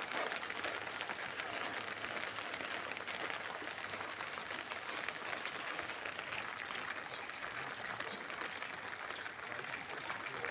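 Rain falling steadily, a dense even patter of drops.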